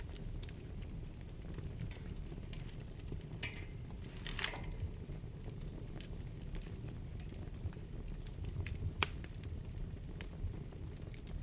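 Wood fire burning in a fireplace: a steady low rumble of the flames with scattered sharp crackles and pops. A brief hiss comes a little over four seconds in, and a louder pop about nine seconds in.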